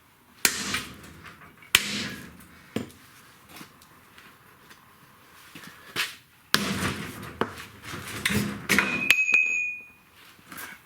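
Metal workshop handling: three sharp knocks, then a couple of seconds of clattering and scraping, ending in a brief high metallic ring.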